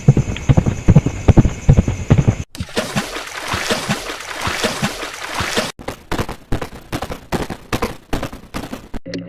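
Horse sound effects cut back to back: a fast, dense clatter of hoofbeats, then a noisy rushing stretch, then steady hoofbeats at about three or four a second. Music comes in near the end.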